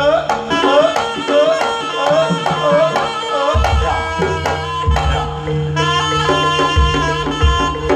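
Live Javanese jaranan ensemble music with kendang hand drums: a melody of short rising notes over the drumming, deep drum strokes coming in about three and a half seconds in, and a bright sustained melody layered on from about six seconds.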